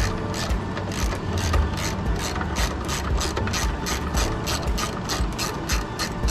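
Socket ratchet wrench clicking in a fast, even rhythm as it turns 10 mm hood-hinge bolts.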